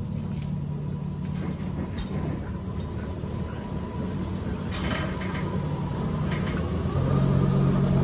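A steady, low, engine-like rumble with a faint high-pitched whine over it, growing louder about seven seconds in.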